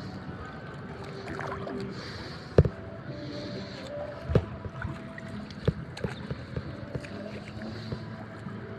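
Shallow seawater sloshing and splashing around a person wading through it. Scattered sharp knocks and clicks sound over it; the loudest comes about two and a half seconds in and another near the middle.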